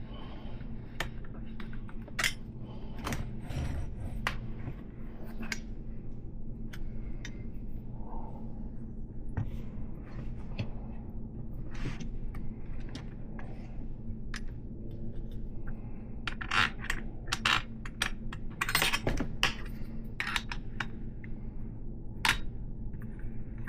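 Small metal parts clicking, clinking and scraping as a wrench works a 3/8" solid axle with its spacers and nuts in a BMX fork and hub. The clicks are scattered, with a denser run of clinks about two-thirds of the way through. A steady low hum runs underneath.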